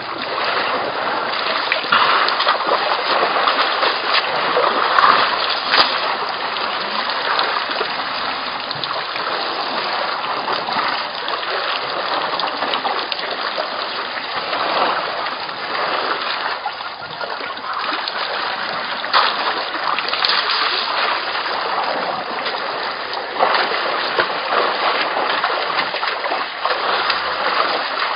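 Water splashing and sloshing steadily as African elephants drink at the edge of a waterhole, their trunks dipping into and stirring the water, with many small irregular splashes.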